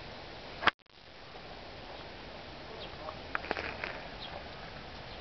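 Irish setter nosing through raspberry bushes: leaves and canes rustling, with a cluster of small sharp clicks about three and a half seconds in, over a steady outdoor hiss. A single sharp click near the start is followed by a brief gap in the sound.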